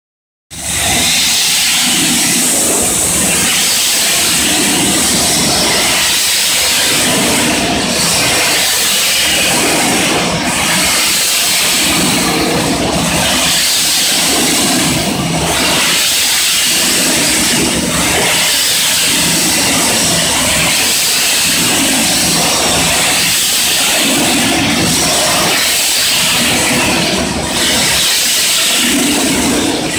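Coal-fired triple-expansion steam engine of the vintage lake steamer TSS Earnslaw running under way, heard up close in its engine room. It is a loud mechanical clatter with steam hiss and a regular rhythmic pulse.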